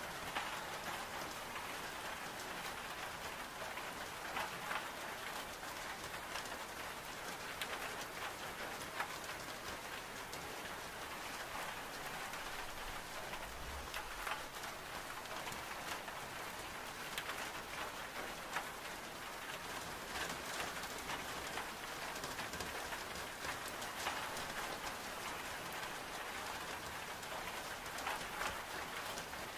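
Steady rain on window glass, an even hiss with scattered small ticks and crackles that fit a wood stove's fire crackling.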